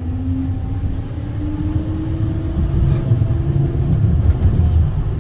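Ride inside a moving electric tram: a steady low rumble of the wheels on the rails, with the traction motors' whine rising slowly in pitch over the first three or four seconds as the tram gathers speed.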